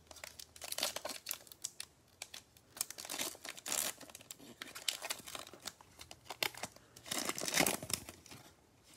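Foil wrapper of a Prizm basketball trading-card pack crinkling and tearing as it is opened by gloved hands. A run of sharp crackles, with louder bursts about a second in, around four seconds and near the end.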